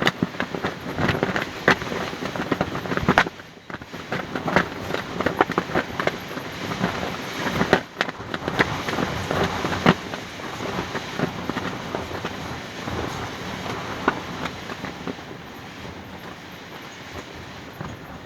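Fabric flapping hard in strong wind, with rapid, irregular loud cracks and snaps over a rushing rumble. It eases to a softer flutter in the last few seconds.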